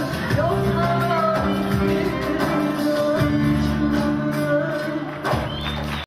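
Live Turkish folk music: a woman singing into a microphone over steady instrumental accompaniment with held notes and a light beat, heard amplified in a large hall.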